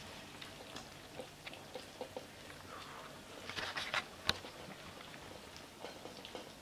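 Siberian kittens eating from food bowls: soft chewing and many small clicks of teeth on food and bowls, with one sharper click a little past four seconds.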